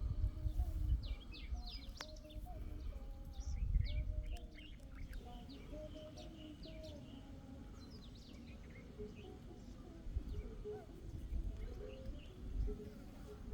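Small birds chirping outdoors: many quick high chirps, busiest in the first half and thinning out later, over low rumbles near the start and about four seconds in.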